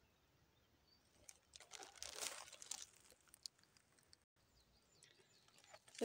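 Crunching and crackling of footsteps over dry leaf litter, twigs and stones, a cluster of steps starting about a second in and fainter crackles near the end, with near silence between.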